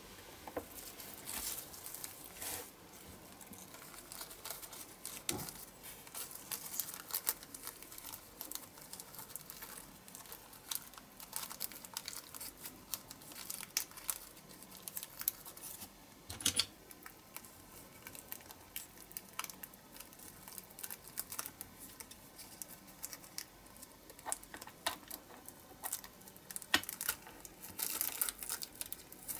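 Thin clear plastic film crinkling and crackling as it is handled and pressed around a small diecast toy car body, in irregular crackles with a few sharper clicks.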